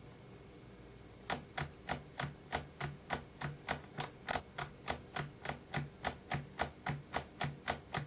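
RC transmitter toggle switch being flicked back and forth rapidly, clicking about three to four times a second from about a second in. It is the repeated flicking of the flight-mode switch used to put the DJI flight controller into compass calibration mode, which at this attempt fails to engage.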